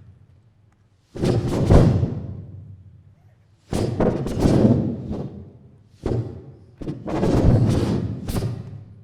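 Deep percussion hits in performance music, about five of them: each strikes suddenly and rings away over a second or so, at uneven gaps of one to three seconds.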